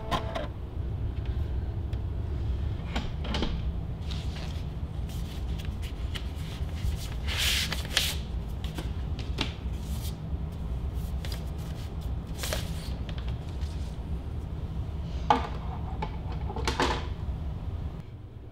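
A stereo switched to its phono input with no record playing, giving a steady low hum. Clicks, knocks and a few short scraping noises come from a turntable being handled. The hum drops away near the end.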